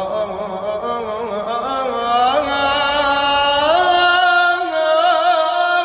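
A man singing a long, held, ornamented note in an Arabic lament, without words. The melody steps up in pitch twice and wavers near the end.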